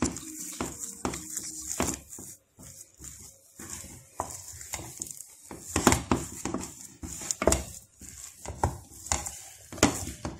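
Wooden spoon knocking and scraping against an enamel pot as thick carrot fufu dough is turned and pressed, in irregular strokes with a few louder knocks toward the end.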